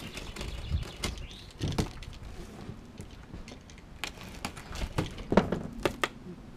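A cardboard box being opened and its packaging handled: scattered crackles, scrapes and knocks, busiest about four to five seconds in.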